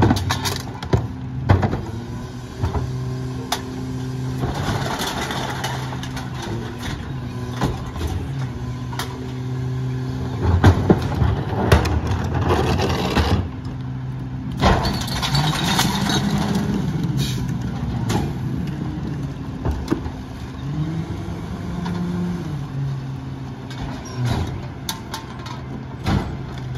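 Freightliner/McNeilus rear-loader garbage truck's engine idling and twice speeding up for a few seconds as the hydraulic packer cycles, with repeated bangs and knocks of plastic trash carts being tipped and knocked against the hopper.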